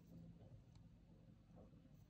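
Near silence: faint low room hum, with one faint click of small wooden parts being handled under a second in.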